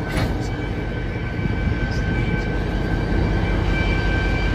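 White Pass & Yukon Route locomotive 3001 standing and running at close range: a steady, loud rumble with a constant high whine over it.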